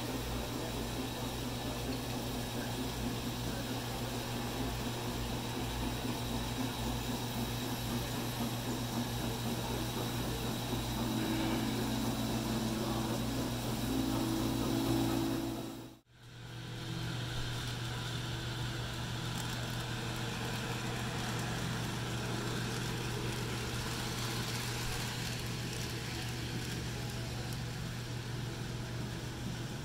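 Steady low mechanical hum with background noise, cutting out abruptly for an instant about halfway through and then resuming.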